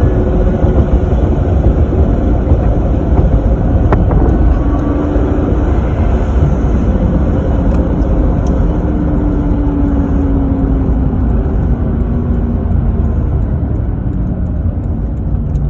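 Supercharged Lexus IS300's 2JZ-GE inline-six driving along, with heavy road and wind noise over the engine. The engine note sinks slowly as the car eases off, and the sound tapers off over the last few seconds.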